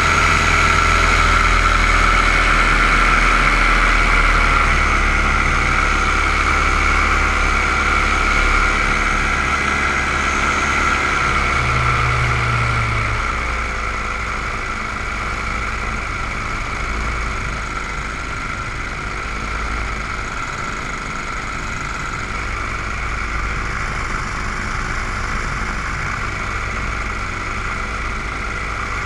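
Small camera drone's electric motors and propellers whirring steadily, heard close up from the onboard camera. The pitch shifts a little as the drone manoeuvres, and it gets somewhat quieter about thirteen seconds in.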